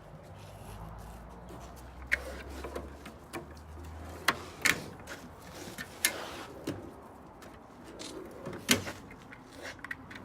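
Drawers and lid of a steel US General tool cart being opened, slid and shut, giving a string of sharp metal clicks and knocks.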